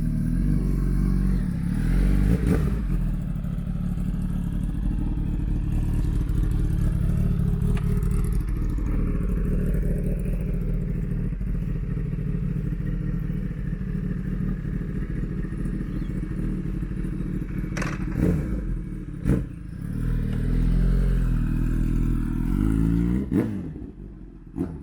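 Kawasaki Ninja ZX-10 sport bike's inline-four engine running at a steady idle, with short throttle blips near the start and again near the end. A couple of sharp knocks about two-thirds of the way through.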